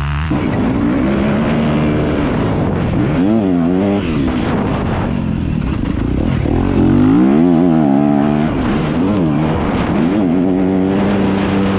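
Motocross dirt bike engine heard close up from the rider's onboard camera, revving up and falling back several times as the throttle is opened and closed through a corner and along a straight.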